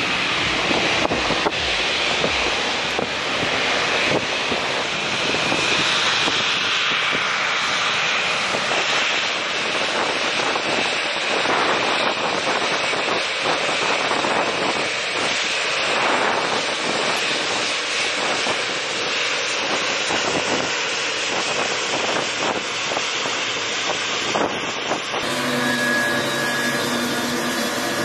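Boeing 777-9's GE9X turbofan engines running at taxi power as the airliner rolls past close by: a steady jet rumble with a faint whine on top. About 25 seconds in the sound changes abruptly to a steadier hum with several held tones.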